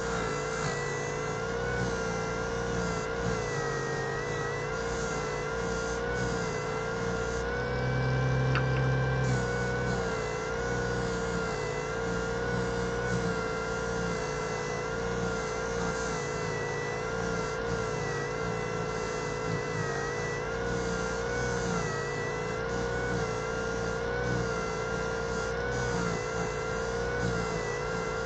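Small 140-watt Parkside bench disc sander running steadily under light load, its motor whine wavering slightly in pitch, with a soft hiss as an epoxy resin piece is sanded on a fine 5000-grit disc.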